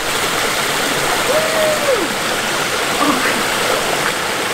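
Steady rush of a small creek waterfall spilling into a rock pool. About a second and a half in comes one short falling voice sound.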